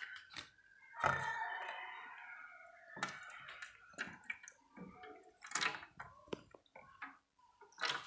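Water poured from a plastic bottle into a plastic bowl, splashing and dripping, with a few sharp clicks and knocks along the way.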